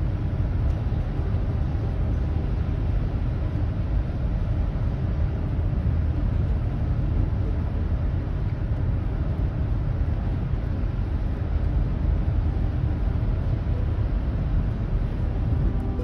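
Steady road noise inside a moving car's cabin: a low rumble with tyre hiss from driving on a wet, snow-covered highway.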